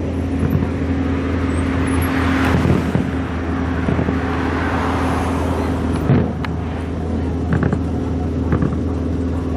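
Distant fireworks going off, a few sharp bangs among them, the clearest about six seconds in, over a steady low hum. In the middle a road vehicle swells past and fades.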